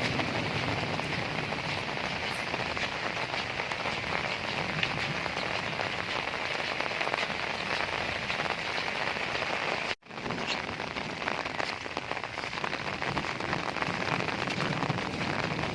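Heavy rain falling in a steady, dense hiss, with scattered drops pattering on surfaces. The sound cuts out for an instant about ten seconds in, then comes straight back.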